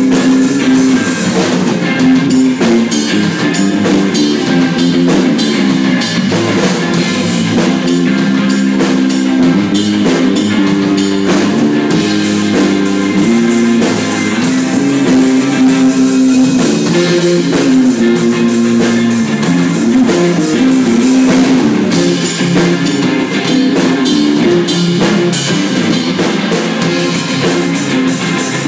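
Live rock band playing loudly: electric guitars over a drum kit.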